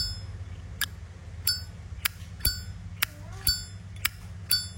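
Zippo lighter lid flipped open and snapped shut over and over: about nine sharp metallic clicks, roughly two a second. Several of them ring on with a high, clear bell-like ting, the 'bell' sound of a lighter tuned for a good lid sound.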